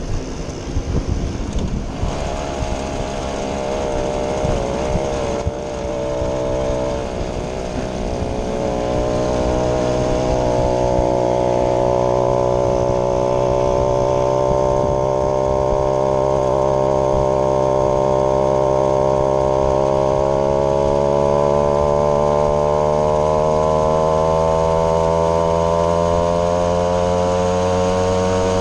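Vintage moped's small two-stroke engine running under way. It is uneven for the first several seconds, then settles into a steady buzzing note that slowly climbs in pitch as the moped picks up speed.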